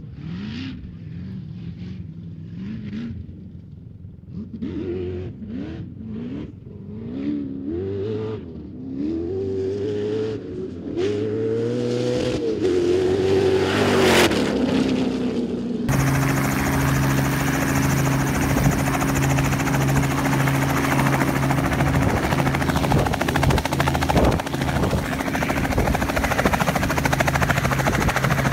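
A sand car's engine revving up and falling back in repeated rises, getting louder as it closes in and passes by about 14 seconds in. Then the sound cuts abruptly to a helicopter running close by: a steady drone under heavy rushing wind from the rotor wash.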